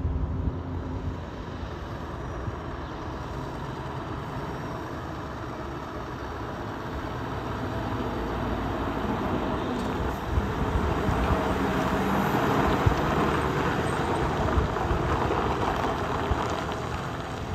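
Scania R730's V8 diesel engine running as the loaded truck and drawbar trailer come closer and pass, with tyre noise. It gets louder about halfway through and eases slightly near the end.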